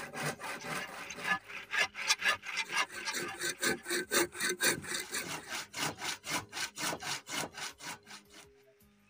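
Hand saw cutting wood in fast, even back-and-forth strokes that stop shortly before the end.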